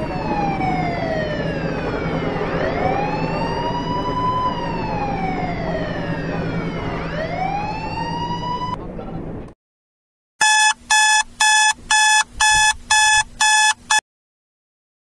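Ambulance siren wailing, its pitch sweeping slowly down and back up, over a steady low hum; it cuts off suddenly about nine and a half seconds in. After a short gap, electronic alarm-clock beeping sounds in pulses about twice a second for a few seconds, then stops.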